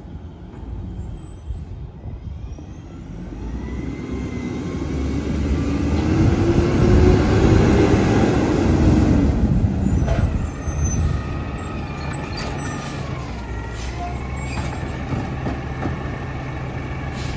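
Diesel engine of a Mack garbage truck with a side-loading arm, growing louder as it drives up, then a short air-brake hiss about ten seconds in as it stops, after which it idles steadily.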